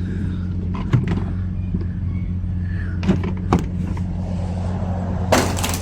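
A steady low hum runs throughout, with a few short clicks and knocks and a brief rustling burst near the end.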